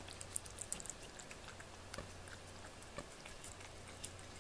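A cat licking a paste treat from a small dish: faint, quick, irregular wet clicks of the tongue, thickest in the first second, over a low steady hum.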